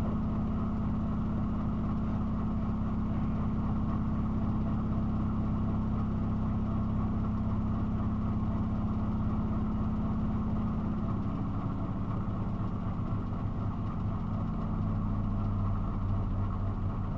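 Miele washing machine spinning its drum in the first intermediate spin of a 90 °C boil wash, a steady motor hum whose pitch shifts about eleven seconds in as the drum changes speed.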